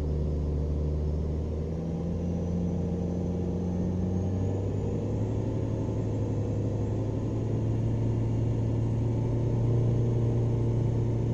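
Car engine at full throttle in fourth gear, held by a chassis dynamometer in speed mode. It drones steadily and climbs slowly in pitch as the dyno speed is stepped up toward about 3,500 rpm, getting a little louder near the end. Heard from inside the car's cabin.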